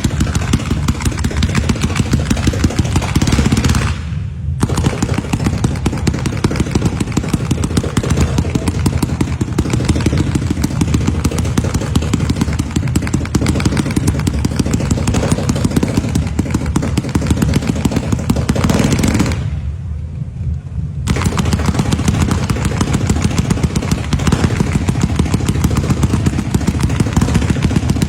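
Fireworks going off in a rapid, almost unbroken run of cracks and bangs, like machine-gun fire. There is a brief pause about four seconds in and another a little over two-thirds of the way through.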